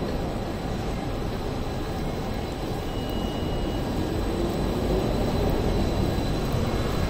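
CAF Urbos 3 tram running slowly round a curve on street track, its wheel and motor rumble growing louder as it approaches, with a faint brief high wheel squeal about three seconds in.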